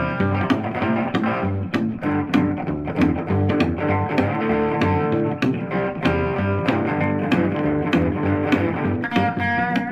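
Background music with plucked guitar and bass over a steady beat of about three strokes a second.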